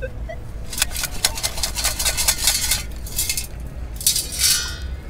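Sand and gravel rattling in a perforated metal sand scoop shaken to sift out a dug target: a rapid clatter of small clinks for about two seconds, then a brief rush near the end.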